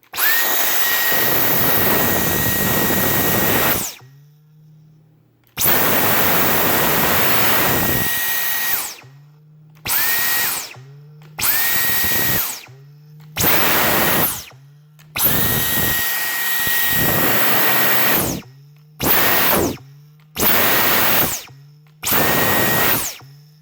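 Dyson V10 cordless stick vacuum switched on and off by its trigger about nine times, in runs of one to four seconds, each with a steady high whine. After each release, as the motor winds down, a faint low boing follows. The owner thinks it may come from something rubber in the filter area or from new materials that still have to wear in, and does not think it is serious.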